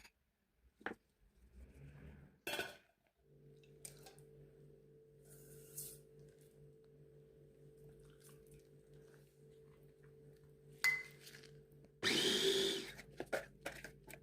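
A small electric motor hums steadily in a kitchen, starting about three seconds in. A few clicks and knocks of utensils come before it, and a loud scraping rush comes near the end.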